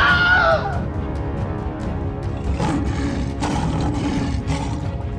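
Background music with a steady beat, with a creature's roar sound effect in the first second that falls in pitch and ends under a second in.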